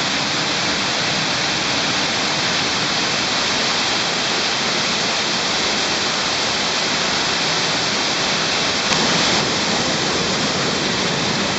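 Loud, steady rush of water falling and splashing down a cave shaft, unbroken throughout. A faint high steady tone sits over it.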